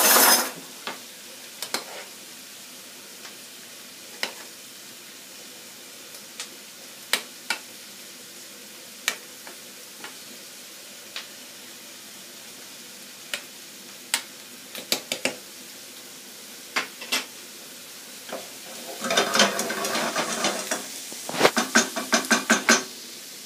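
A spoon stirring chicken gizzards in an aluminium saucepan: scattered taps and scrapes against the pot over a steady low hiss. Near the end, a wooden spoon stirs chopped onions frying in a pan, a dense stretch of sizzling and rapid scraping that is the loudest part.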